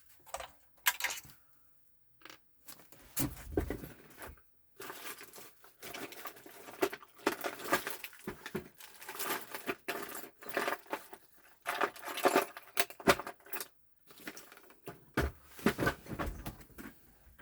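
Irregular clicks, clinks and rattles of a PS4 console's plastic and metal parts being handled and moved during disassembly, busiest in the middle, with short pauses.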